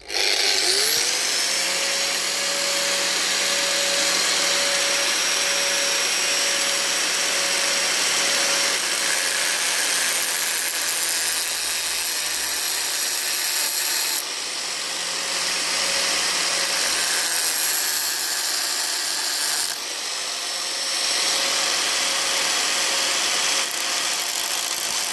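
Electric angle grinder with a metal cutting disc spinning up to speed, then running with a steady high whine while cutting grooves into a rusty threaded steel rod. The pitch sags briefly twice, about two-thirds of the way through, as the disc bites into the metal.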